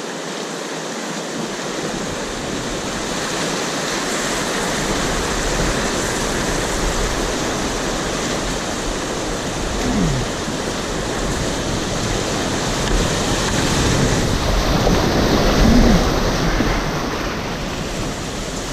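Whitewater river rapids rushing steadily and loudly, with a low rumble joining in a couple of seconds in.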